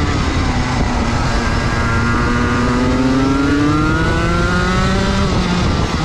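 Rotax Max 125cc two-stroke racing kart engine heard onboard, pulling from low revs out of a corner with its pitch climbing steadily for about three seconds, then dropping sharply as the throttle is lifted about five seconds in, and starting to climb again near the end.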